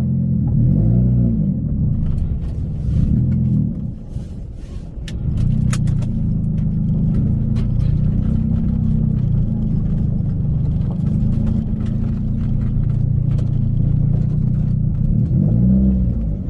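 Car engine idling after a cold start, blipped briefly a few times: once about a second in, again about three seconds in, and once more near the end, each time rising and falling back to idle.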